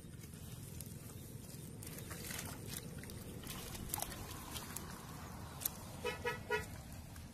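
Hands scraping and packing damp, gritty soil around a buried clay pot, with scattered crunches and clicks. About six seconds in, three short beeps sound in quick succession.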